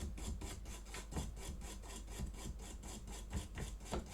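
Scrubbing an Xbox Series S circuit board at the HDMI port pads with isopropyl alcohol to clean off brownish residue: quick, even back-and-forth scratchy strokes, about five a second.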